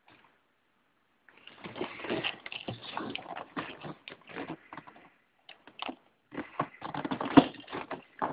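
Cardboard Lego set box being handled, scraping and rustling with irregular clicks, starting about a second in, pausing briefly past the middle and then louder again.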